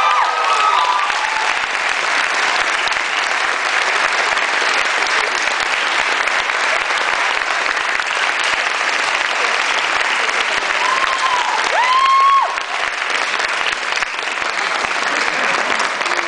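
An audience applauding steadily throughout, with a couple of short whoops cutting through near the start and again about eleven to twelve seconds in.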